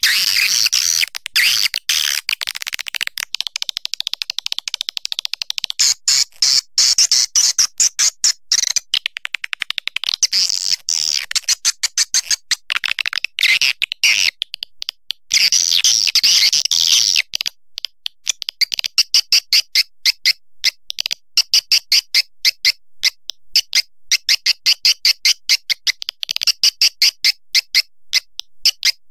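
Swiftlet lure sound: recorded swiftlet calls, a dense high twittering of chirps and clicks. In the second half it settles into a regular train of short chirps, several a second.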